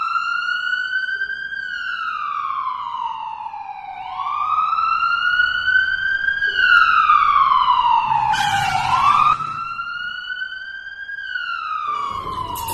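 Ambulance siren wailing, its pitch rising and falling slowly through about three cycles, with a short burst of hiss about eight seconds in.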